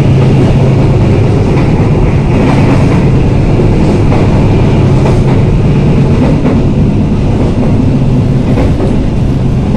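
Passenger train running along the track, heard from on board: a steady low rumble with scattered faint clicks of the wheels over the rails.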